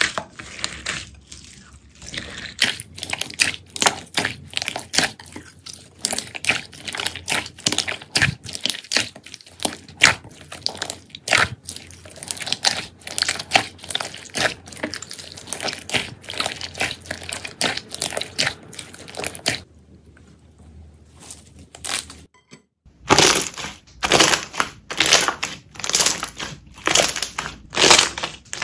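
Jelly slime being squeezed and pressed by hand, giving dense, irregular crackling pops. A short lull comes near the end, then the crackling resumes louder.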